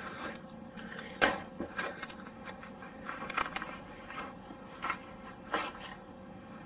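A man hiccuping: one sharp hiccup about a second in, then a few softer short sounds spaced a second or so apart.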